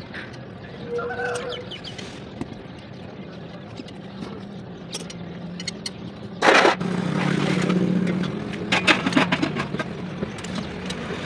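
Metal clinks and scrapes of a box spanner and tommy bar turning the wheel hub nuts of a ten-wheeler truck. One loud, sharp clank comes about six and a half seconds in, followed by a quick run of clinks. A steady low hum runs underneath.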